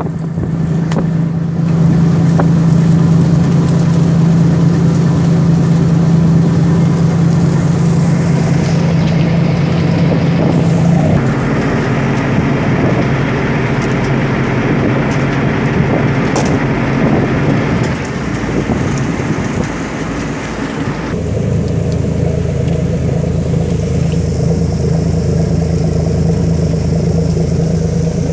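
Landing craft's diesel engine running with a steady drone, heard from on deck in strong wind. About ten seconds in, a rushing noise of wind and rain takes over. The steady engine drone comes back, lower, about seven seconds before the end.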